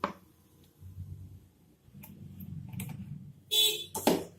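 Kitchen handling sounds while ingredients go into a marinade bowl: a faint click, some low rubbing, then two short, louder clinks near the end.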